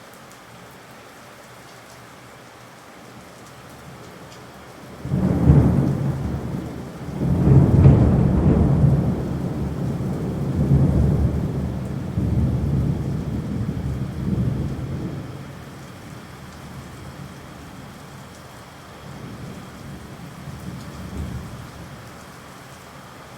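Steady rain with thunder: a sudden loud clap about five seconds in that rolls and rumbles in waves for roughly ten seconds, then a softer rumble near the end.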